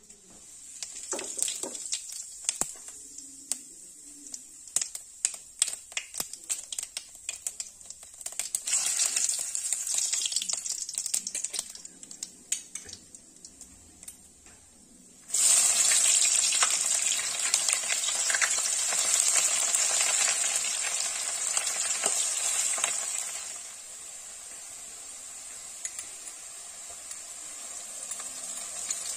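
Hot oil sizzling in a steel wok as fenugreek seeds and bay leaves fry, with many small crackles and pops. About halfway through, a sudden much louder sizzle as chopped onions go into the oil, easing to a softer steady sizzle later.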